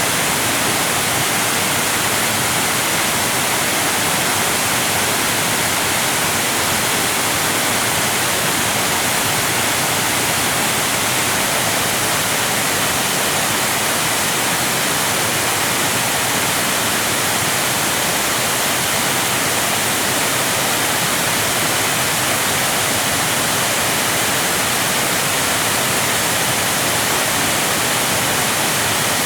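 Waterfall: a steady, unbroken rush of falling water that does not change, heavy in hiss and light in bass.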